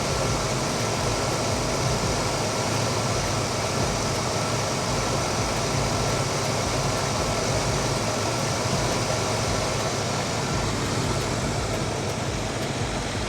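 A car running steadily, a constant low hum with a hiss of road and wind noise.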